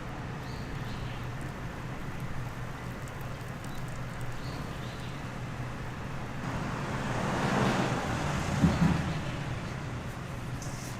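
Steady low traffic hum, with a vehicle passing by, swelling to a peak and fading away in the second half.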